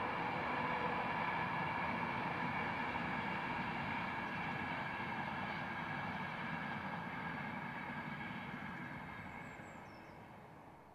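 Class 91 electric locomotive hauling an InterCity 225 train passing at speed: a steady rushing rumble carrying a few steady tones, which fades away over the last few seconds as the train recedes.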